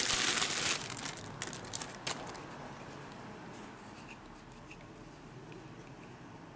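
Clear plastic bag crinkling as a camera lens is pulled out of it, loud for about the first second. It then fades to a few scattered clicks and soft handling noises.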